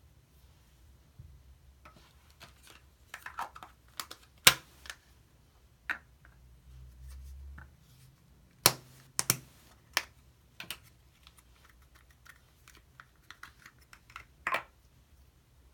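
Sharp plastic clicks and snaps from a small Play-Doh tub being handled and opened, a few loud snaps among quieter ticks and taps.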